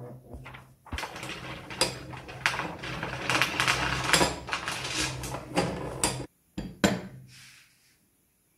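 Hand-cranked Crown crepe (fluting) iron turning: its corrugated rollers and crank gearing give a run of irregular metallic clicks and clatter as paper is fed through and crimped. The clicking breaks off about six seconds in, with a couple more clicks after.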